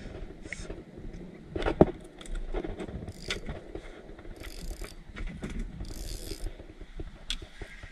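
Spinning fishing reel being handled and cranked, its gears clicking and whirring in short runs, with a sharp knock about two seconds in.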